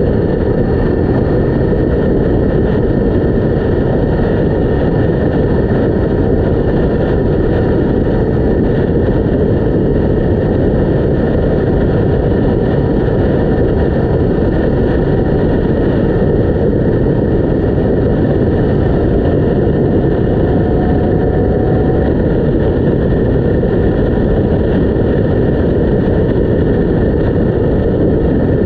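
Yamaha MT-10 motorcycle, a crossplane inline-four, cruising at a steady road speed, heard from a GoPro mounted on the bike: a loud, steady rush of wind noise over the microphone with the engine running underneath.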